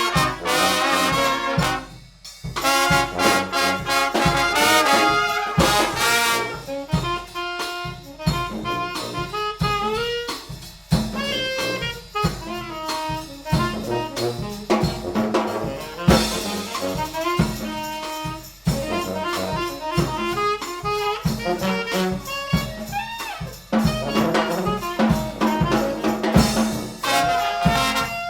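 Live brass band playing a jazzy tune, trumpets and trombones over a steady drum beat, with a short break about two seconds in.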